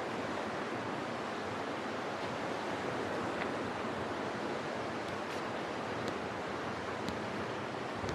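Steady, even rushing noise of fast-running water, like a creek in spate.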